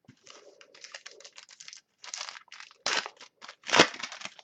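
Trading cards being slid and flipped through by hand: a rapid run of short papery scrapes and rustles, denser and louder in the second half.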